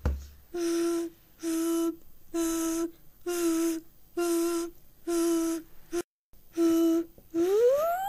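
Fire alarm sounding: a steady electronic tone beeping on and off about once a second, then a wailing siren that begins to rise near the end.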